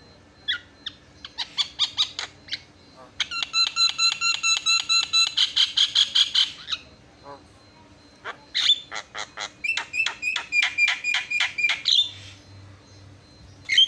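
Javan myna (jalak kebo) singing: a few scattered harsh notes, then two long runs of rapid, evenly repeated buzzy notes, each lasting three to four seconds with a short pause between, and one loud note near the end.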